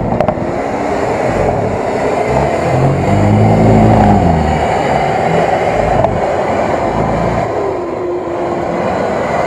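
Nissan Patrol's engine working hard as the SUV ploughs through deep mud, its tyres churning. The revs rise and fall again about halfway through, which is the loudest part.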